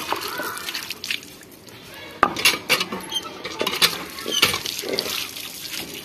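A small terracotta pot being washed at a hand pump: water splashing from the spout, with a string of sharp clinks and knocks from the pot and the pump's iron handle.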